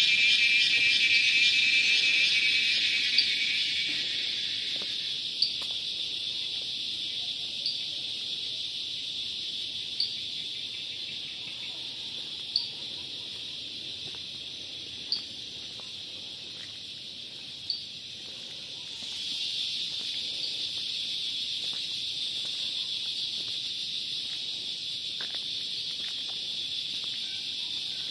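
Evening chorus of insects shrilling steadily in a high band, with a lower pulsing trill that fades out over the first few seconds. A single sharp chirp repeats about every two and a half seconds through the first two-thirds. The chorus swells louder again about two-thirds of the way through.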